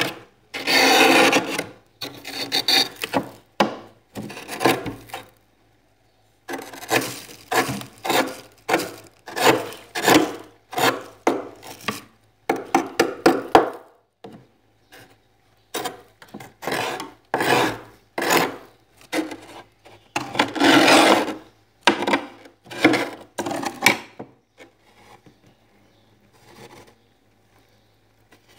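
Thick frost being scraped off the inside walls of a freezer with a scraper, in quick repeated strokes. There is a short pause about six seconds in, and the strokes thin out and go quieter near the end.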